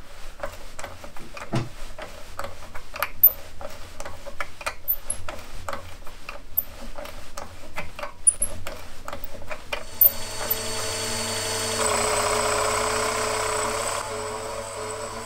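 Hand-tapping threads in an aluminium plate with a T-handle tap wrench: many irregular light clicks and ticks from the tap and wrench. About ten seconds in, the milling machine spindle starts with a steady whine and a mist coolant spray hisses. About two seconds later the cutter bites into the aluminium and the sound grows louder.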